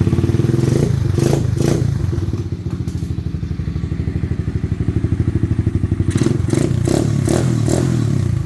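125cc Chinese ATV's single-cylinder engine running at idle with a rapid, even pulse, started by touching a wire to the starter solenoid. A few knocks and clatters sound over it about a second in and again near the end.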